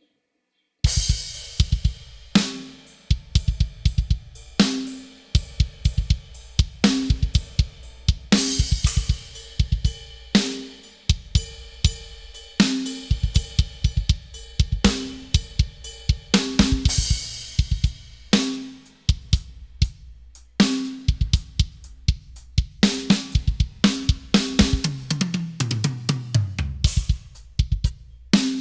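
Sampled acoustic drum kit from FXpansion BFD3 playing a groove completely dry, with no inserts, console or tape: kick, snare, hi-hat and cymbal crashes, starting about a second in. Near the end comes a tom fill stepping down in pitch.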